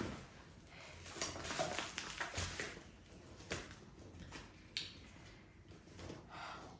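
Rustling and light knocks of gift packaging and items being handled and unpacked, in short irregular bursts.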